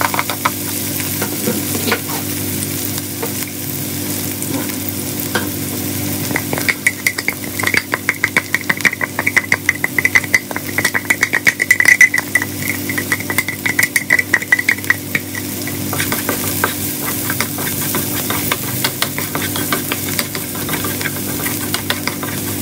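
Chopped onion and minced garlic sizzling in hot oil in a nonstick pan, being sautéed. In the middle stretch there is a run of quick, regular scraping strokes.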